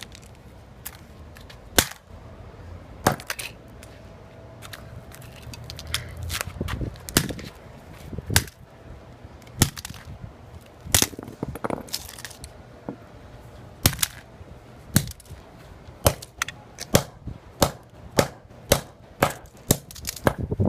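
A flip phone being smashed: repeated sharp, hard impacts, about one a second at first and coming faster, near two a second, toward the end.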